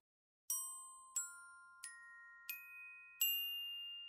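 Short logo jingle of five struck, ringing mallet-like notes, climbing in pitch step by step about two-thirds of a second apart, the last note ringing on.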